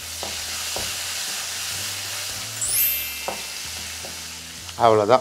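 Curry leaves spluttering and sizzling in hot ghee and oil with mustard seeds and urad dal, a tadka tempering, as a wooden spatula stirs and knocks a few times against the aluminium kadai. A short rising high chime sounds about halfway through.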